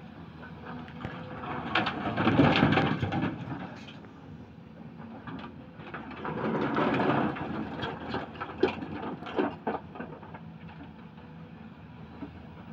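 Volvo crawler excavator running steadily while its bucket works a pile of rough stone: two loud spells of rocks scraping and clattering against the steel bucket, then scattered sharp clacks of loose stones.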